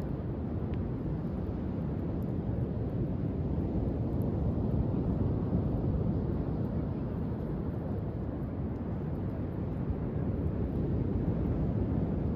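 Steady low rushing noise of wind on the microphone and surf on the beach, with a few faint light ticks.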